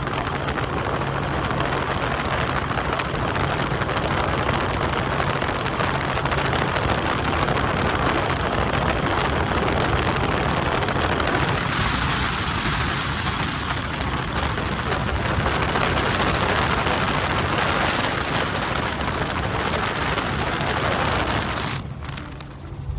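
Robinson R44 helicopter in flight: a steady low drone of rotor and engine under a loud rush of wind over the microphone held outside the cabin. Near the end the wind rush drops away suddenly as the microphone comes back inside.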